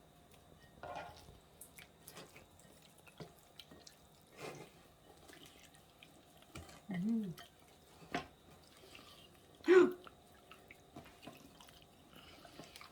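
Raw chicken pieces being dropped into a bowl and turned by hand in olive oil and spices: scattered soft, wet taps and squelches.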